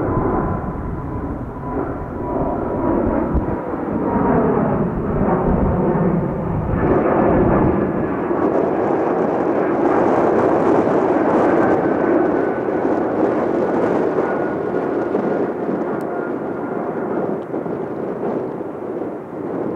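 Jet roar of a departing Airbus A220's Pratt & Whitney geared turbofan engines climbing out overhead. A steady, loud roar with deep rumble that thins about eight seconds in, and a faint whine that slowly falls in pitch as the jet passes and moves away.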